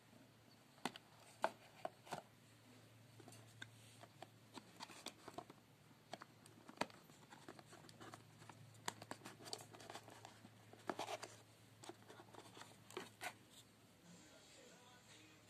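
Faint handling noises as a smartphone's cardboard retail box is opened and the phone lifted out: a scatter of short clicks, taps and rustles.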